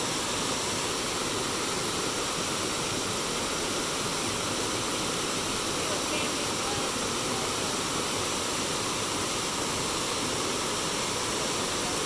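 River water running steadily: an even, unbroken rushing hiss with no breaks or changes.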